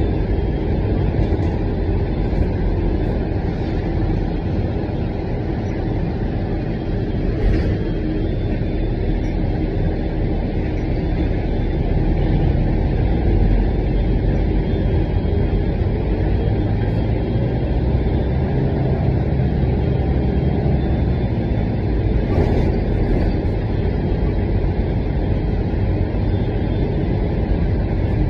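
City transit bus in motion, heard from inside the cabin: a steady engine and road rumble, with a couple of brief knocks partway through.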